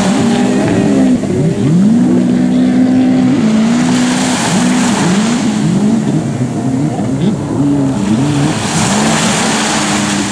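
Several racing jet-ski engines revving, their pitches rising and falling and overlapping, one held steady at high revs for about two seconds early on. Two swells of hiss rise and fade, about four and nine seconds in.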